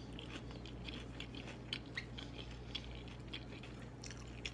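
Close-miked chewing of a fried seafood deviled egg: irregular small wet mouth clicks and light crunches, over a faint steady low hum.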